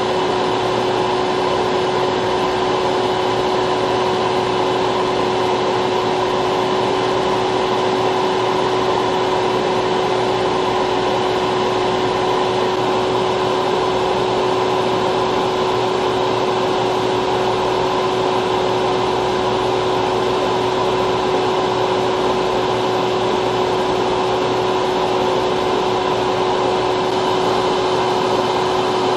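Small electric fan motor running steadily: an even whooshing rush with a constant hum.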